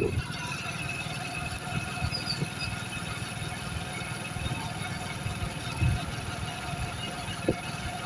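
Motorbike engine running steadily while riding, with wind rumbling on the microphone.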